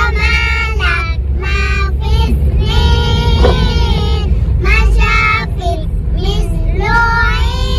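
Children singing loudly together in short phrases with some held notes, over the steady low rumble of the vehicle they ride in.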